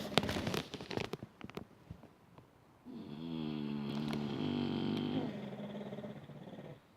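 A sleeping pet snoring: a run of crackling clicks in the first second and a half, then one long pitched snore that starts about three seconds in and stops just before the end.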